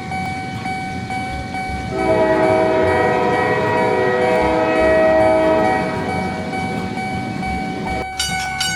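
Cartoon train sound effect: a train rumbling past with a horn chord of several notes held for about four seconds from about two seconds in. A steady ringing tone runs underneath, and a run of quick clicks starts near the end.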